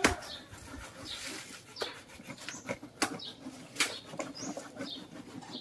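Raw cassava being grated by hand on metal graters, one a homemade grater of tin punched through with nails: irregular rasping strokes with a few sharp scrapes and knocks.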